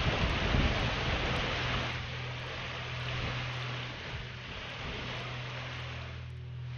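Wind buffeting an outdoor microphone over a steady rushing hiss, with a low steady hum underneath. The buffeting is strongest in the first two seconds, then eases.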